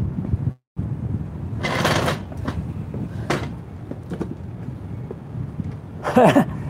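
A man pulling out a metal patio chair and sitting down in it, heard as a scrape about two seconds in and a sharp click a second later, with a few small knocks, over a steady low rumble. A short voice sound comes near the end.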